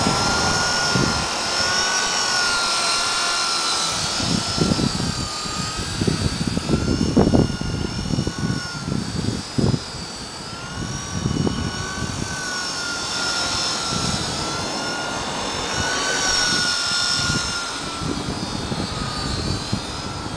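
GAUI Hurricane 200 electric RC helicopter in flight: a steady high motor-and-rotor whine whose pitch wavers up and down as it flies. Irregular low rumbles come and go under it, mostly from about four to twelve seconds in.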